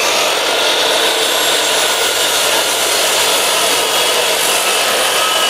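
Makita sliding mitre saw with a new 305 mm crosscut blade running at full speed, a steady high whine over the motor noise, as the blade is lowered into a 4 cm glued-up board of cherry wood.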